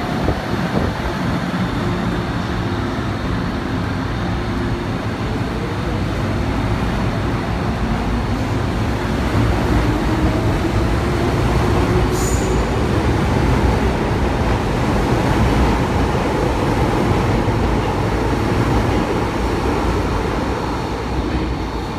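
Metro-Cammell electric multiple-unit subway train pulling away from the platform. Its motors whine steadily upward in pitch as it gathers speed over the rumble of wheels and cars, with one short sharp click about halfway through, and the noise eases off near the end as the last car leaves.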